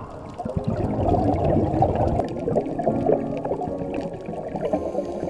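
Underwater bubbling and gurgling from a scuba diver's exhaled bubbles, an irregular low bubbling that swells about half a second in.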